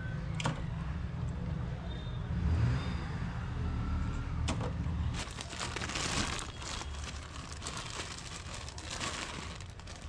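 Plastic packaging crinkling as the replacement refrigerator power cord is handled, dense and continuous from about halfway through. Before that, a low hum with a couple of sharp clicks.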